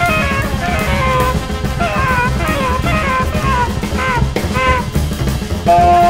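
Jazz band playing: a trumpet runs a melodic line of bent, sliding notes over drum kit and bass. Near the end a held horn chord comes in.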